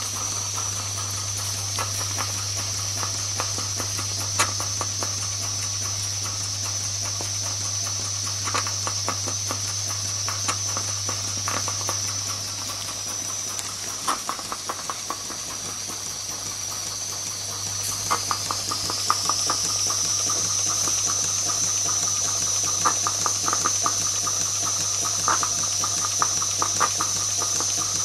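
Jensen 20G toy steam engine ticking over slowly: a steady steam hiss with a steady low hum under it and light, irregular clicks from the engine. The clicks come thicker and the hiss a little louder in the second half.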